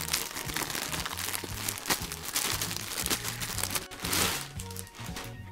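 Clear plastic poly bag crinkling as a packaged hoodie is handled and opened, with a louder rustle about four seconds in, over background music with a bass line.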